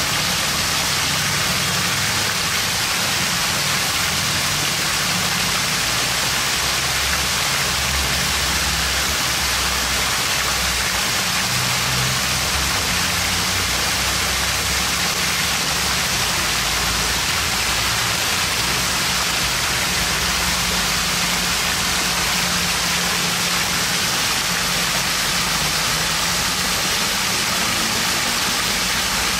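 Water pouring steadily off the rim of a mushroom-shaped splash-pad fountain and splashing down, a constant rushing spatter, with a low rumble that shifts underneath.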